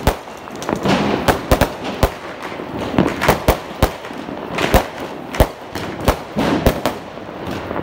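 A 30-shot aerial fireworks cake firing: an irregular string of sharp bangs, about two a second, as its shells burst overhead, with a noisy hiss between the reports.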